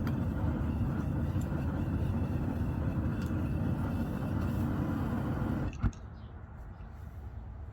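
Forge running with a steady low rumble, cut off by a sharp click about six seconds in, after which only a faint background remains.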